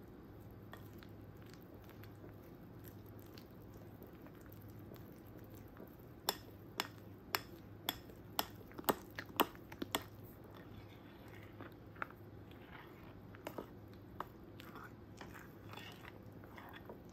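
A metal utensil stirring flour into thick chocolate pancake batter in a glass bowl: soft scraping, with a run of sharp clinks against the glass, about two a second, in the middle, and a few scattered clinks later.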